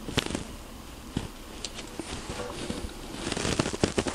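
Scissors snipping through monofilament nylon fishing-net mesh, a string of short sharp clicks that come faster near the end, over the light rustle of the handled netting.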